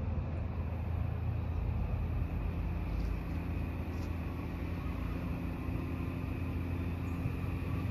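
Steady low rumble of a Shore Line East commuter train approaching from a distance, not yet close.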